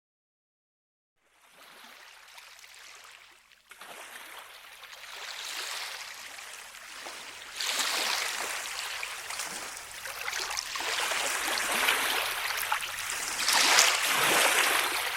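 Running water: a noisy rushing hiss that starts about a second in and grows louder in steps.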